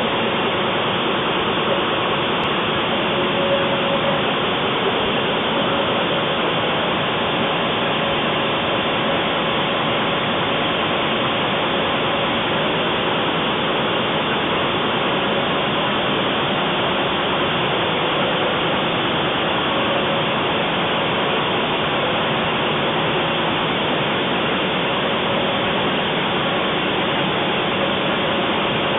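DGM 850 newspaper printing press running: a steady, loud, even mechanical noise with a faint steady hum under it.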